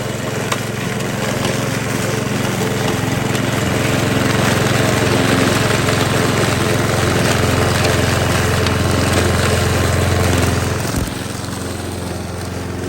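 Ryobi petrol grass cutter's small engine running at high speed, building over the first few seconds, then dropping back to a lower idle about eleven seconds in as the throttle is let off.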